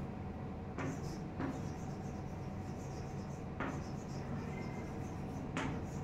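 Chalk writing on a chalkboard: a handful of short, separate strokes over a steady low background hum.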